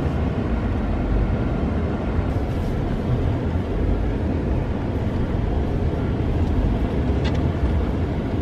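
Steady low rumble heard inside the cabin of a Ford Endeavour 3.2 five-cylinder diesel SUV driving on a dirt track: engine and tyre noise.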